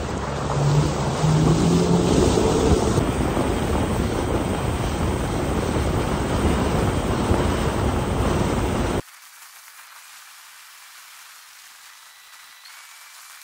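175 hp outboard motor driving a boat at speed, its pitch rising as it throttles up over the first couple of seconds, under heavy wind and rushing water. About nine seconds in the sound cuts off abruptly to a faint hiss.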